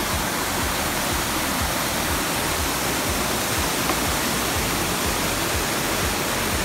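Water fountain jets spraying and splashing back into the pool: a steady rushing hiss of falling water.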